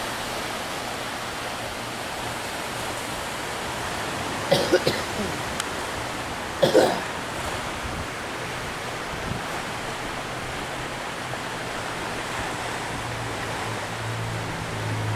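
Steady wash of ocean surf breaking on a lava-rock shore, broken twice by short, loud sounds, about four and a half and six and a half seconds in.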